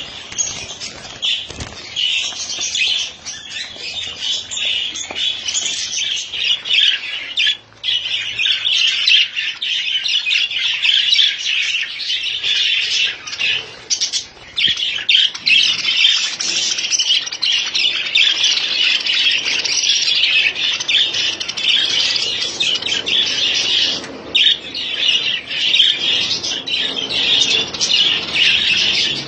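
A flock of caged budgerigars and cockatiels chattering and squawking continuously, many quick overlapping calls at once.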